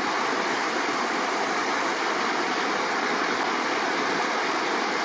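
Clearwater River rushing steadily, an even unbroken roar of flowing water.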